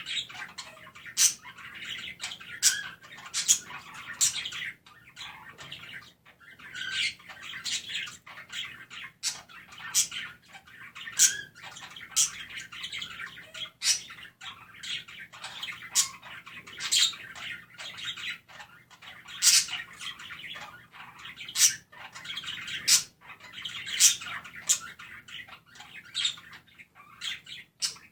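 Pet budgerigars chirping and warbling loudly in a continuous chatter, broken by frequent short, sharp high clicks about once a second.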